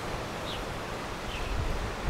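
Wind buffeting the microphone outdoors, with gusty low rumbling. Short high falling chirps repeat about twice a second throughout.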